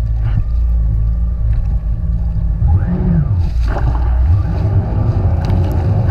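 Jet ski engine running with a loud low rumble, mixed with wind and water noise; about three seconds in, its pitch briefly rises and falls back.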